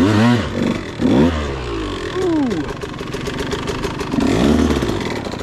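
2013 KTM 150XC's single-cylinder two-stroke engine being blipped on the throttle, its pitch rising and falling sharply about four times between lower revs.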